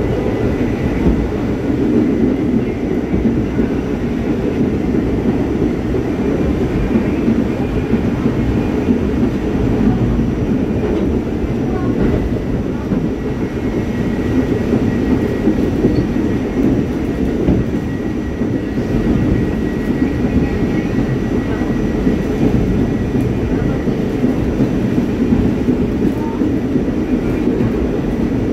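R44 subway car of the Staten Island Railway running steadily along the line, heard from on board: a continuous low rumble of wheels on rail with a faint steady high whine above it.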